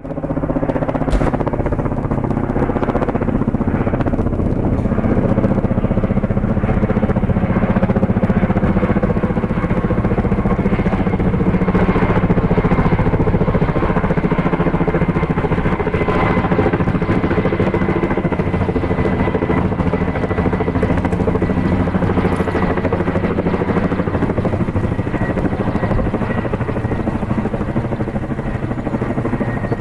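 Kamov Ka-32A11BC coaxial-rotor helicopter with its twin turboshaft engines flying overhead: a steady, loud rotor beat and engine hum with a thin high whine above it, growing a little louder toward the middle and easing slightly near the end.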